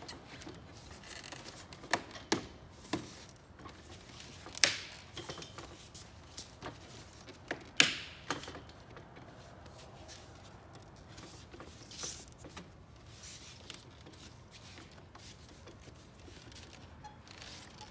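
Plastic clips of a Toyota Camry front grille snapping into the bumper cover as the grille is pushed down: several sharp clicks, the loudest about four and a half and eight seconds in, with plastic rubbing and handling between. Each click is the sign that a clip has locked in place.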